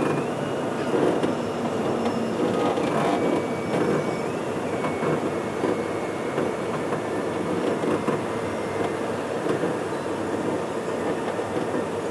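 Manila MRT-3 train car running, heard from inside the carriage: a steady rumble of wheels and running gear with a faint high whine that steps up and down in pitch during the first few seconds.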